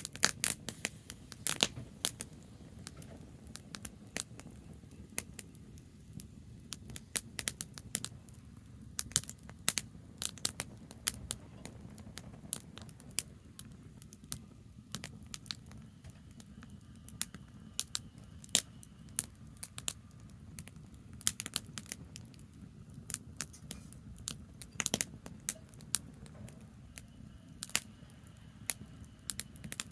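Campfire of branches burning, crackling with frequent irregular sharp pops over a low steady rumble.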